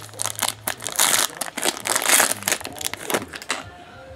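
Foil trading-card pack wrapper crinkling and crackling as it is handled and the card is slid out. The crinkling stops about three and a half seconds in.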